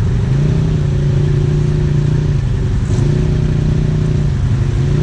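ATV engine running steadily under throttle, dipping briefly in pitch about two and a half seconds in and again near the end.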